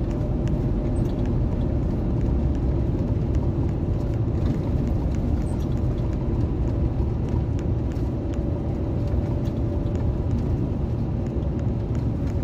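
Steady engine and road rumble heard from inside a tractor-trailer truck's cab while driving, with a faint steady drone running underneath.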